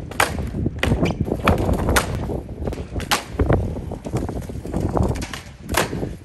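Skateboard kickflips on concrete: the tail popping and the deck and wheels slapping down on landing, heard as several sharp cracks, with the wheels rolling on the concrete between them.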